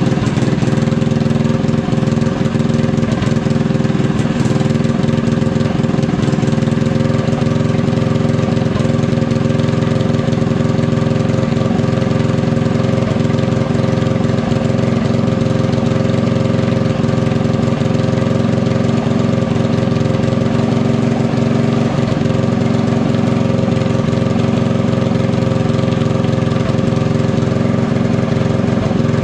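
Drift go-kart's small petrol engine idling steadily, with no revving or change in speed.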